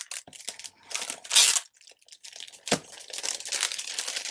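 Packaging crinkling and rustling as a mail parcel is unwrapped by hand, with a louder rustle about a second in and a dull knock a little under three seconds in.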